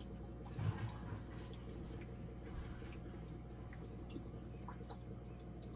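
Aquarium water dripping and trickling over a steady low equipment hum, with small faint ticks throughout. A single soft low thump comes just under a second in.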